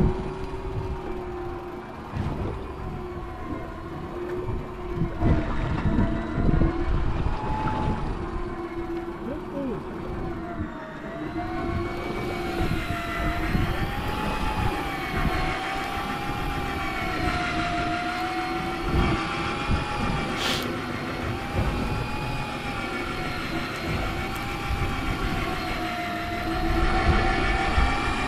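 Electric fishing reel motor whining as it winds line up from depth, its pitch wavering slowly up and down. Boat and wind rumble run underneath, with one sharp tick about 20 seconds in.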